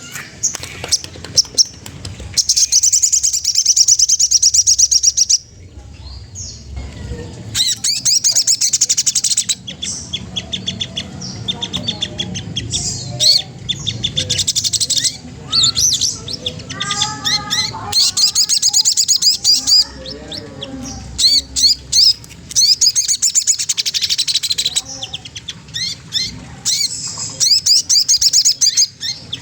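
Sogon trotol songbird singing: bouts of fast, high chattering trills a few seconds long, broken by short pauses, with a run of lower, stepped call notes about two-thirds of the way through.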